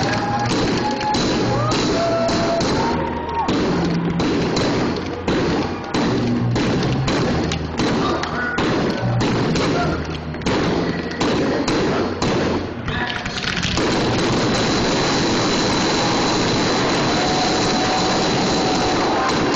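Aerial fireworks shells bursting in quick, irregular succession, a string of sharp bangs that about two-thirds of the way through merges into one continuous dense barrage.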